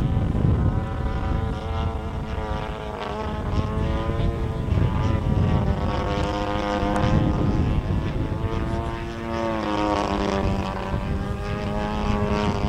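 DA-50R single-cylinder two-stroke gas engine of a 30% scale Yak 54 RC aerobatic plane flying overhead, its propeller drone rising and falling in pitch as it flies.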